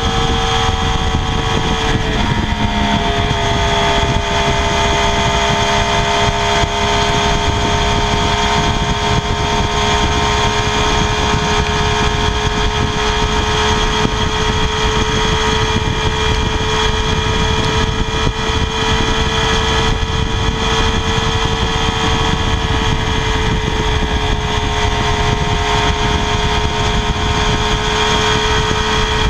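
Triumph Daytona 675R's 675 cc inline three-cylinder engine running through its stock exhaust, held at steady high revs. The pitch dips slightly about two seconds in, then stays almost level.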